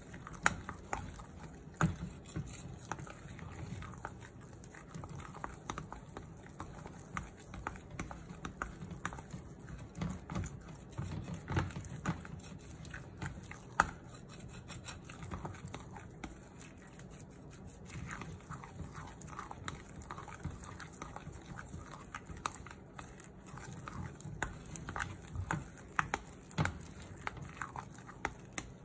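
Silicone spatula stirring thick, wet pancake batter in a glass mixing bowl, with irregular taps and scrapes of the spatula against the glass.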